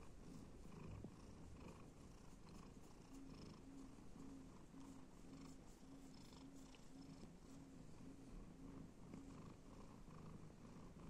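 Domestic cat purring steadily and faintly while being scratched on the head and cheek.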